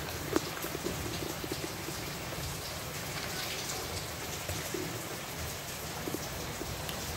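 Cats eating dry kibble: irregular small crunches and clicks of the pellets against a plastic bowl, over a steady hiss, with one sharper click about half a second in.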